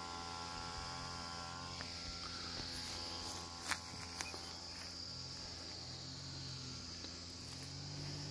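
Insects chirring in a steady high-pitched drone. A faint steady hum fades out in the first two seconds, and there are a couple of soft clicks about halfway through.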